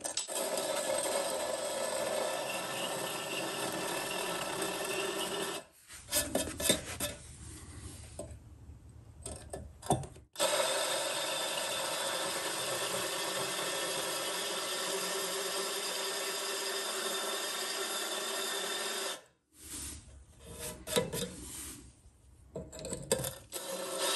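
Power drill spinning a diamond hole saw that grinds dry into a concrete roof tile: a steady grinding run of about six seconds, then a gap of a few seconds with short uneven scrapes, a second run of about nine seconds, another gap of scrapes, and the grinding starts again near the end.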